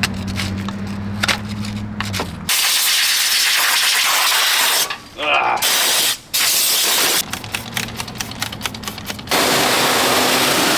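High-pressure sprayer hissing in long bursts, with pauses where a low motor hum and rapid clicking are heard instead; it cuts off briefly twice near the middle.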